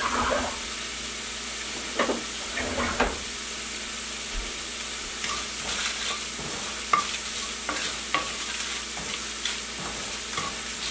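A wooden spoon stirs whole spices (dried red chillies, cumin, black peppercorns and fennel seeds) as they roast in a non-stick frying pan. The spoon scrapes the pan and the seeds rattle in many small scattered clicks from about halfway through, over a steady frying sizzle.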